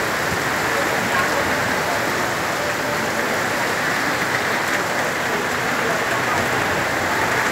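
Heavy rain pouring down steadily on surfaces during a windy storm.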